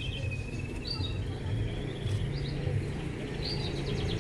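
Small birds chirping in short repeated calls and quick trills, over a steady low hum.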